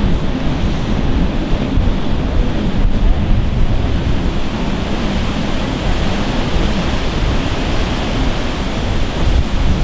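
Steady wash of ocean surf with wind buffeting the microphone, deepest at the low end; no distinct engine note stands out.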